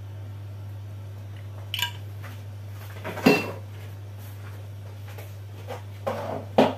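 A few knocks and clinks of kitchenware and a sauce bottle being handled on a counter: a small click, a loud knock about three seconds in, and a couple more near the end, over a steady low hum.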